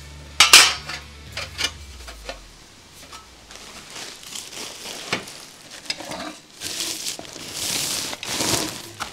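Stainless-steel fuel pan pieces of a pizza oven clatter loudly as they are set down about half a second in, followed by a few lighter metal clinks. Packing paper and plastic wrap then rustle and crinkle, most strongly near the end.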